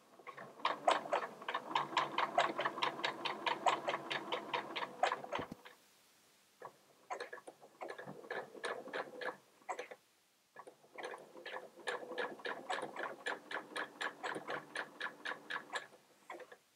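Brother sewing machine stitching a blind hem stitch along a trouser hem: an even run of needle strokes ticking several times a second, pausing twice briefly before running on.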